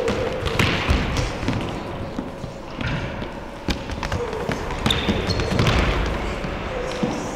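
Soccer ball being kicked and bouncing off a hard indoor floor and wall, a run of irregular thumps and knocks, with scuffing feet.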